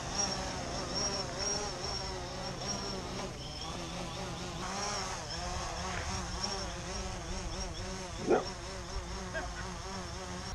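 DJI Phantom 3 quadcopter's motors and propellers buzzing, the pitch wavering up and down. A brief squeak rises and falls about eight seconds in.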